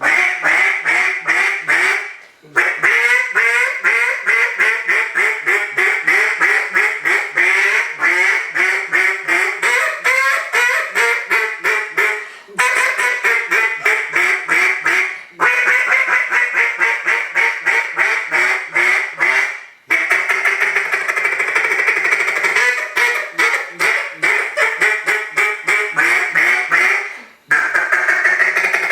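GooseDown "Timber Tantrum" duck call blown by hand in long strings of rapid quacks, broken by a few short pauses. After about twenty seconds the notes come quicker and closer together.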